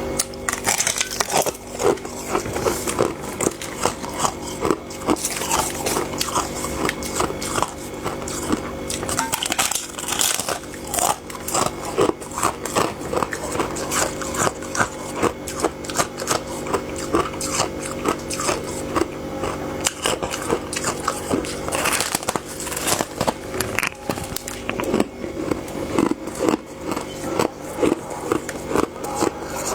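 Close-miked biting and chewing of soft, fluffy freezer frost: a continuous run of crisp, rapid crunches.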